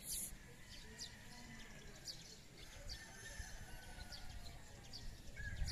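Faint bird chirps, short high calls coming about once a second, over a low rumbling noise.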